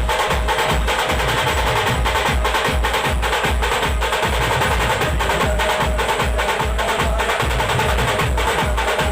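Loud band music with a heavy, steady drum beat and deep bass thumps under held melody notes.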